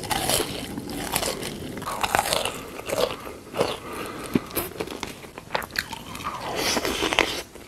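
A person biting and chewing crunchy food close to the microphone, with irregular crunches and crackles.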